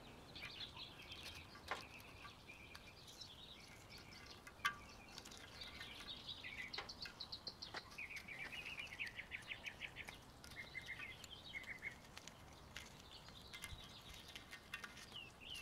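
Faint birds chirping and trilling in short, repeated phrases, with a quick run of rapid notes about eight to ten seconds in. A single sharp click comes about four and a half seconds in.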